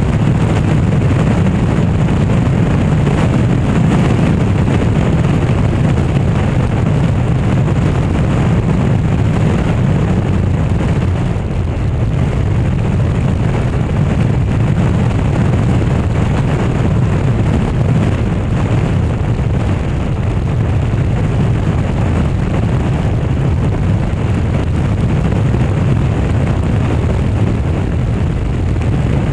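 Motorcycle riding at steady cruising speed, heard from a camera on its handlebars: a steady low engine drone mixed with wind and road noise rushing over the microphone.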